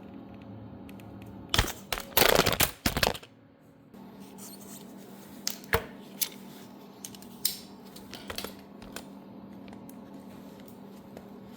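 Vise grips wrenching a stuck, half-rounded cover cap on a 1970 Honda Z50 engine: a loud burst of metal clacking and scraping about a second and a half in, followed by scattered light clicks of metal tools and parts.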